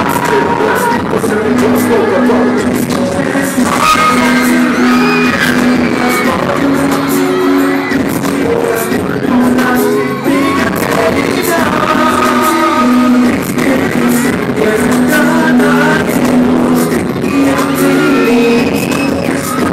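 K-pop boy group singing live into microphones over pop accompaniment with a steady beat, recorded from the audience in a large echoing hall.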